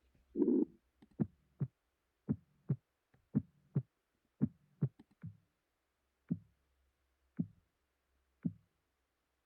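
Synthesized pulsatile-tinnitus sound from a tinnitus simulator: low, heartbeat-like thumps in lub-dub pairs about once a second, becoming single thumps about a second apart near the end.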